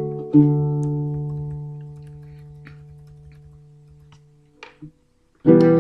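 Guitar chord struck and left to ring, fading away over about four seconds; after a short silence another chord is strummed near the end.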